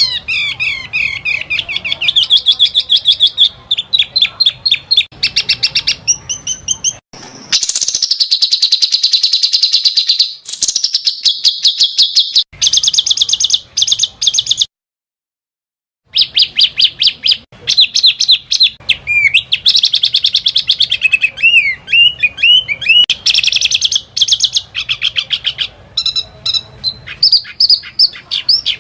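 Small songbirds singing loud, rapid high-pitched trills and fast chattering strings of notes in phrases a few seconds long. The song cuts out completely for about a second near the middle, then resumes.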